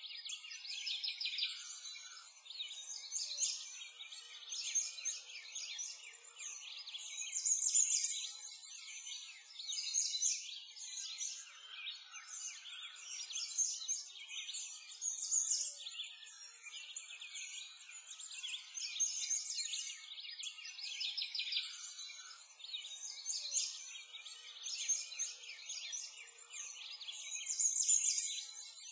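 A dense chorus of many small songbirds chirping and twittering without pause, high-pitched and thin with no low sounds, swelling and easing every few seconds.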